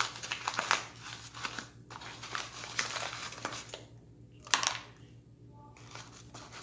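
Paper flour bag crinkling and rustling as a hand reaches in for flour: a string of short rustles, busiest in the first two seconds, with one louder rustle about four and a half seconds in.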